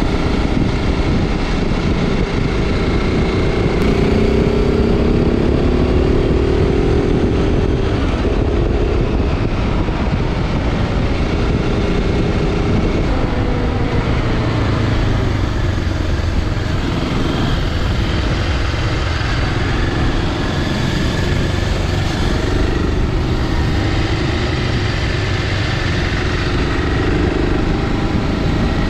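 BMW G650 Xcountry's single-cylinder engine running while the motorcycle is ridden, its pitch climbing and dropping with the throttle, under a steady rush of wind and road noise.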